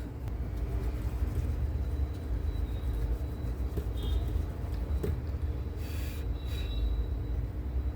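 A steady low mechanical hum with a faint high whine, with two short hisses about six seconds in.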